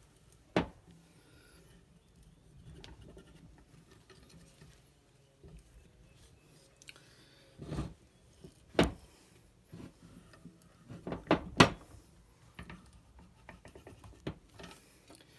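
Scattered sharp metal clicks and knocks from a wrench turning a Cal-Van 38900 spark-plug thread-repair tap in the hole of a Ford 5.4L Triton cylinder head, with faint scraping between. The loudest come as a quick cluster of three about eleven seconds in.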